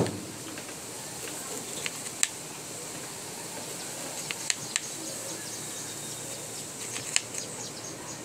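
Kitchen knife slicing a lime into rounds, the blade knocking sharply on a plastic cutting board about every one to two seconds, often two knocks close together, over a steady hiss.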